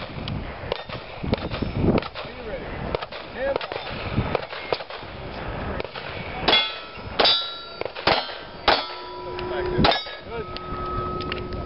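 A pistol fired five times in about three and a half seconds at steel plate targets, the struck plates ringing with a metallic clang after the shots, the last ring humming on to the end. A few quieter knocks come before the string of shots.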